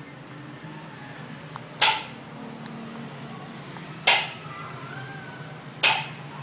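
Three sharp, loud smacks about two seconds apart, each dying away quickly, over a low steady hum.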